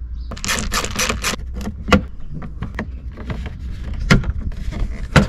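Hard plastic dashboard trim being handled: a rustling scrape about half a second in, then a few sharp plastic clicks and knocks, the loudest just before the end.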